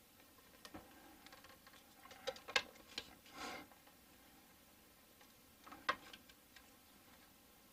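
Faint scattered clicks and taps of small objects being handled, with a short scrape about three and a half seconds in and a sharper tap near six seconds.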